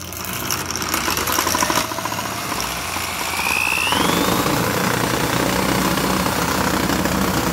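Electric drill spinning up the crankshaft and flywheel of a piston-less lawnmower engine. It gives a rising whine that levels off after about four seconds, over a steady rattle and vibration. The crank is out of balance now that the piston is gone.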